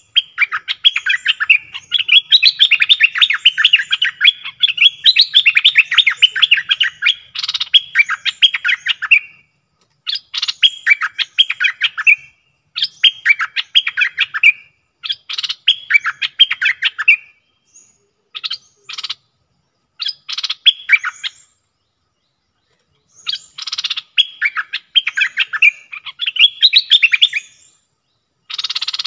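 A caged decoy bulbul (นกดอกแตง, 'merbah' in Malay) singing a fast, chattering song. It sings nonstop for about nine seconds, then in shorter bursts of one to three seconds with brief pauses. It is a challenge song meant to draw a wild rival to the cage.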